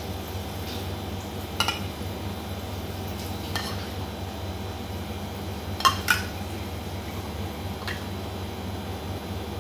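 A metal spoon clinking against metal cookware while rice is spooned into an aluminium pot. There are about five separate sharp clinks a second or two apart, the loudest pair about six seconds in, over a steady low hum.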